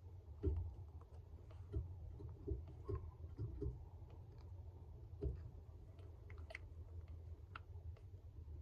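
Faint handling noises: scattered light knocks and small sharp clicks, several in the first few seconds and a few more near the end, over a low steady hum.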